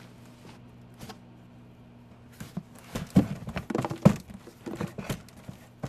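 Someone rummaging through a cupboard stocked with stacks of plastic cups and packages. About two seconds in, irregular knocking, clattering and crinkling begins as things are handled and moved.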